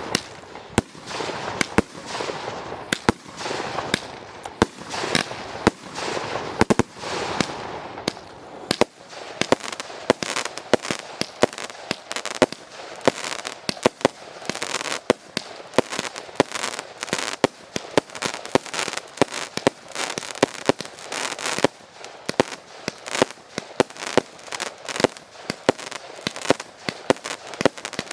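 Fireworks going off in a rapid, continuous barrage: many sharp bangs a second over dense crackling.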